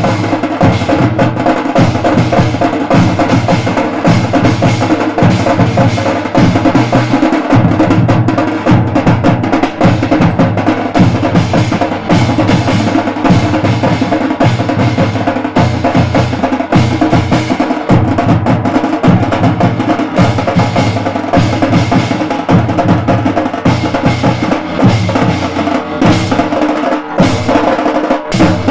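A live band playing loud music, driven by a fast, steady beat of drums and percussion, with pitched instruments sounding over it.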